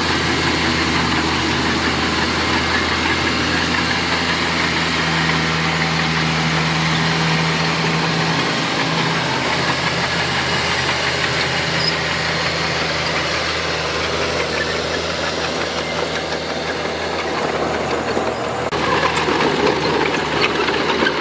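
Heavy earthmoving machine's diesel engine running steadily under work. A rattling, clattering mechanical noise joins near the end.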